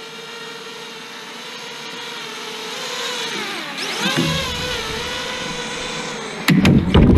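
FPV quadcopter's electric motors and propellers whining steadily, the pitch dipping and wobbling about halfway through as the throttle changes. Near the end, a burst of loud, sharp clattering knocks.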